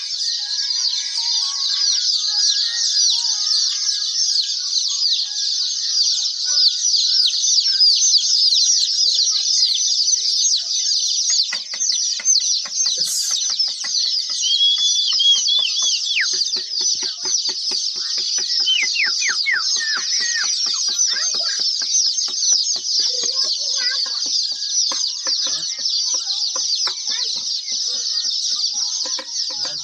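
A large flock of day-old chicks peeping continuously, a dense chorus of high-pitched cheeps. A rapid run of faint taps sounds under it through the middle.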